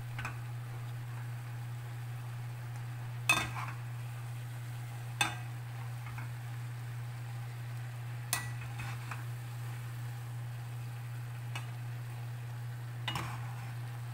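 Kitchen tongs tossing water spinach in a nonstick pot, with five sharp clacks of the tongs against the pot, the loudest about three seconds in. A steady low hum runs underneath.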